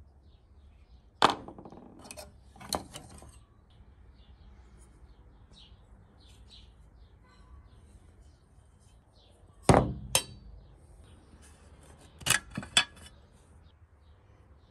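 Metal parts of a PT-1 kerosene stove knocking and clinking against each other and the stove's tin case as it is taken apart by hand. Sharp clinks come about a second in, again near three seconds, a loud pair near ten seconds, and a last pair near the end.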